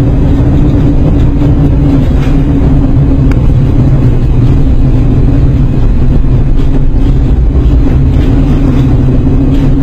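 Container ship underway in storm seas: a loud, steady low rumble with a constant hum, the ship's engine drone mixed with wind and sea noise.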